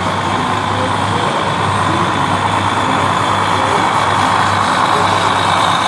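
Radio-controlled model construction trucks running: a steady mechanical whir over a low hum, growing slightly louder.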